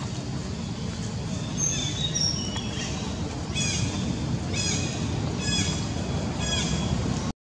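Infant long-tailed macaque crying. A few thin squeaks come around two seconds in, then four short, high-pitched cries about a second apart, each dropping in pitch. These are distress cries, which the uploader puts down to hunger. A steady low rumble of background noise runs underneath.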